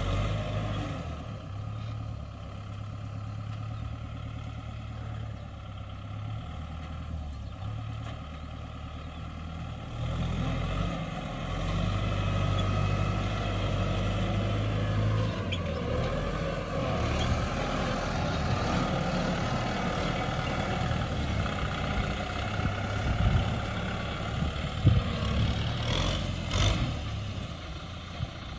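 Kubota M6040 tractor's four-cylinder diesel engine running under load through the field, its pitch stepping up and down and growing louder about a third of the way in as the load changes. A few sharp knocks come near the end.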